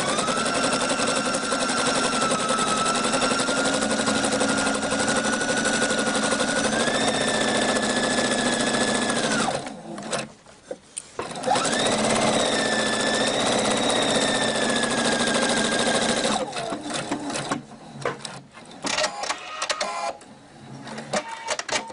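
Electric sewing machine running at speed, sewing a long straight-stitch seam in cotton, its motor whine rising in pitch as it gets going. It stops for about a second and a half near the middle, runs again for about five seconds, then gives a few short bursts and clicks near the end.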